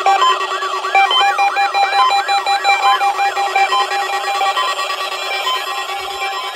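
Weather alert radio receivers sounding their alarms, set off by a NOAA Weather Radio Required Weekly Test signal. A siren-like tone sweeps up and down about three times a second and fades out after about four seconds, over short beeps at several different pitches and a steady low tone.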